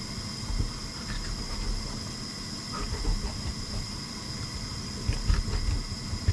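Soft low thuds and small clicks of a knife working through the joints of a large soft-shell turtle carcass on a kitchen cutting board, with a cluster of heavier thuds about five seconds in. A steady hum with a thin high whine runs underneath.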